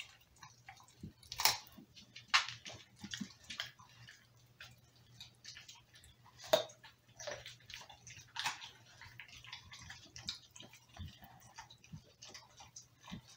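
Pit bull licking and mouthing a chunk of raw meat: irregular wet licks and smacks, with a few louder smacks spread through.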